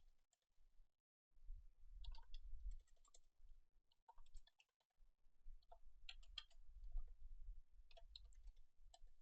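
Faint clicking and tapping of a computer keyboard and mouse, in scattered short runs, over a low rumble.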